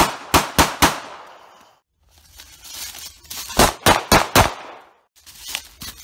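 Semi-automatic pistol fired in quick strings: about four shots within a second, a pause, then another string of four rapid shots, each with a short ringing tail.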